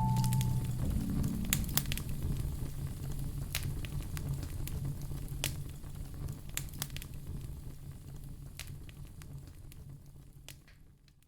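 Wood fire crackling in a fireplace: scattered sharp pops over a low steady rumble, fading out gradually toward the end.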